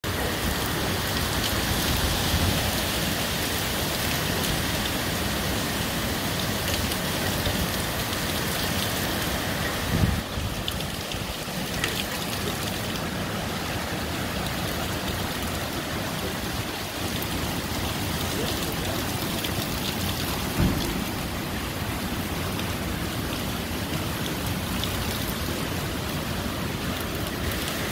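Heavy hurricane rain falling steadily onto pavement and trees, with two brief thumps, about a third of the way in and again about three quarters in.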